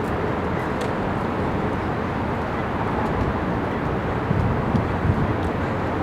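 Steady outdoor city traffic noise, an even low rumble of passing vehicles with no distinct events.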